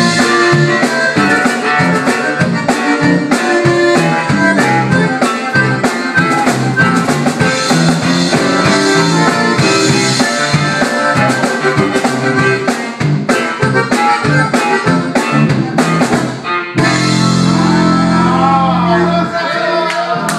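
Live band of accordion, drum kit, acoustic guitar and electric bass playing an up-tempo number with a steady drum beat. About three-quarters of the way through it ends on a long held chord, and voices whoop over the final chord.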